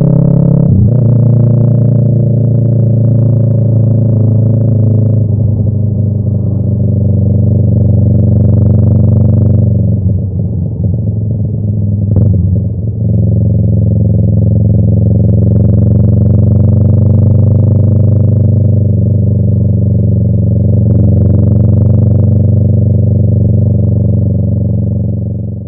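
Yamaha YZF-R3's parallel-twin engine through an aftermarket M4 exhaust, running at steady cruising revs while riding. The engine note wavers and dips briefly about halfway through, then settles back to a steady drone.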